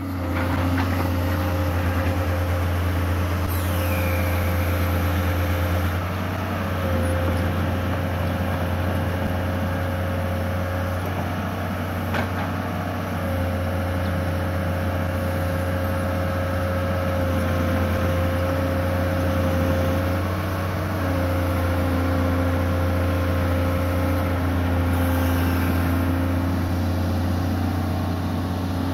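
Hitachi UH045 excavator's diesel engine running steadily while the arm and bucket dig mud from a ditch. Its note shifts and a steady whine breaks off and resumes a few times.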